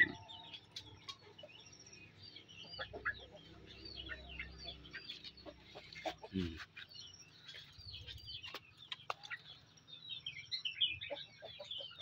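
Caged yellow-vented bulbuls (trucukan) chattering: many short, quick chirps and bent whistled notes. A few sharp knocks come from the cage.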